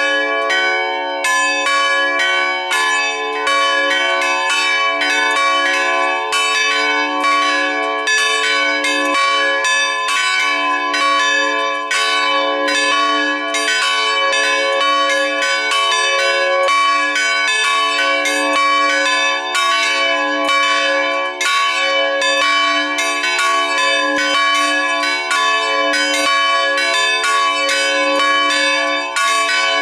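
Full peal (plenum) of three church bells cast in 2004 at the Felczyński foundry in Taciszów, all ringing together. Their strikes come several times a second and overlap, over steady ringing tones that never die away.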